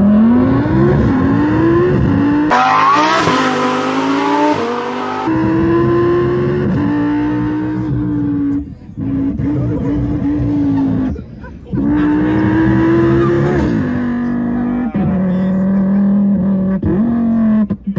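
A man imitating a race car engine with his voice into a handheld microphone: revs climbing in steps like gear changes, a rough hissing stretch about three seconds in, then long held engine drones broken by short pauses.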